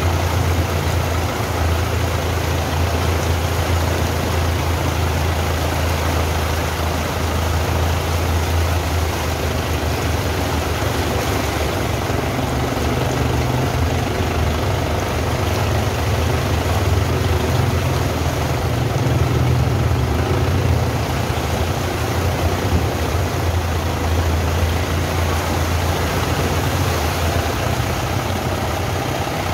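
A vehicle's engine running at low speed with a steady low drone, and its front wheel pushing through floodwater on the road with a continuous rushing splash.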